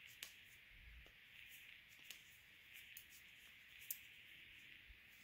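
Near silence with a few faint, irregular clicks of metal-tipped knitting needles tapping together as stitches are knit, over a low steady hiss.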